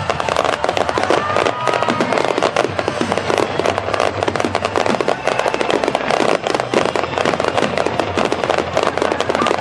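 Aerial fireworks going off in a dense, continuous crackle of many rapid small bursts.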